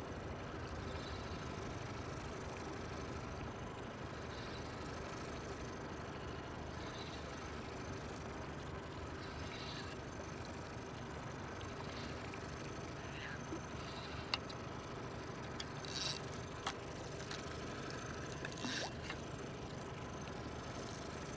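A steady machinery hum, with a few sharp clicks and short rattles in the second half.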